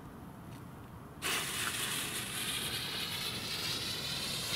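A firework stick rocket's fuse catches about a second in and then hisses steadily as it burns, throwing sparks.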